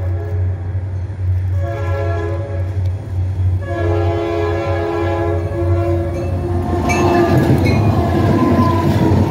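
Diesel freight locomotive's air horn sounding several blasts, the last one long, as the train approaches. About seven seconds in the lead locomotives pass close by, and the horn gives way to a loud rumble of diesel engines and wheels, with sharp clicks from the wheels on the rails.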